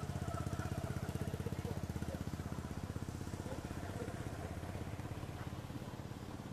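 A small engine running with an even pulsing beat, growing fainter near the end.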